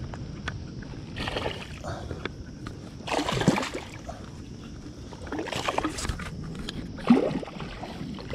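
Water swishing and splashing around an inflatable pontoon boat as the angler's finned feet kick beneath it: four bursts about two seconds apart, over a steady low rumble.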